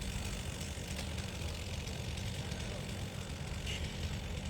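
An engine idling with a low, steady rumble.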